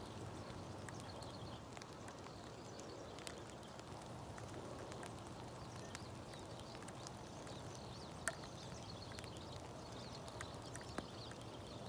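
Steady rain, with scattered drops tapping close by and one louder tap about eight seconds in.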